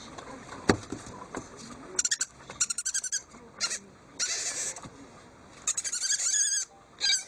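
An owl making high-pitched chittering, squeaky calls in several short bouts, with a hissing call among them, while a finger scratches its head.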